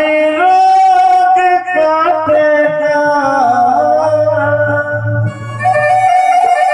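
Live amplified devotional music through a PA: a lead melody of long held notes that step and slide in pitch, over a low sustained accompanying note that drops out near the end.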